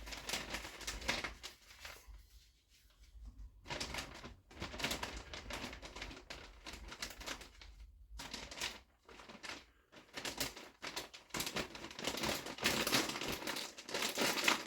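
Plastic mushroom grow bag with a filter patch crinkling in irregular stop-start bursts as it is folded down over its sawdust fill, with brief pauses about two seconds in and again around eight and ten seconds.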